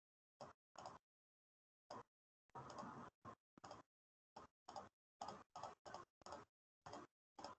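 Faint, irregular short clicks and taps, about two a second, each cut off sharply into dead silence, with one longer rustling burst about three seconds in.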